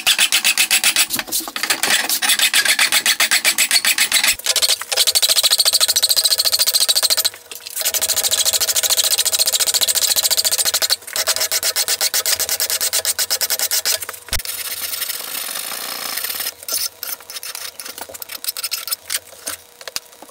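Hand file rasping along the edge of a metal casting held in a bench vise, in steady back-and-forth strokes that clean off casting marks and flashing. The strokes pause briefly twice and turn lighter and more broken near the end.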